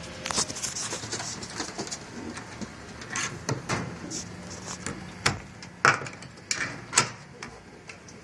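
Handling noise around pigeon cages: scattered knocks, clicks and rustling, with the sharpest knocks in the second half.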